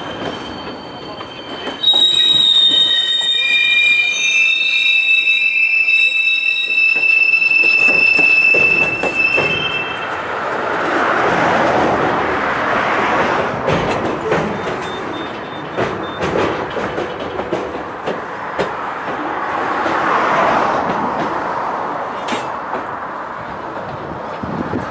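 Freight cars rolling through a hump classification yard. Their steel wheels squeal on the rails in several high, shrill tones from about two seconds in until about ten seconds, then give way to the rumble and clatter of cars rolling past, swelling twice.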